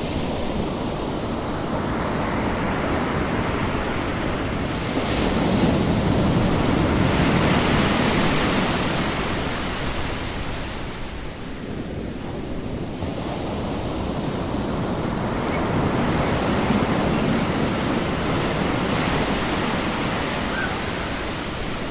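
Ocean waves washing in: a steady rush of surf that swells up and falls back twice.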